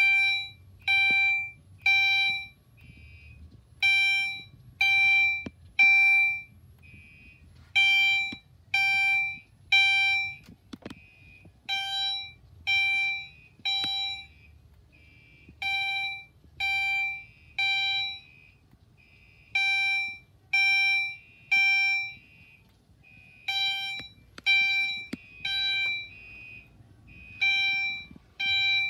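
Gentex Commander 3 fire alarm sounding its chime tone in the temporal-3 evacuation pattern: three chimes about a second apart, a pause, then repeating about every four seconds.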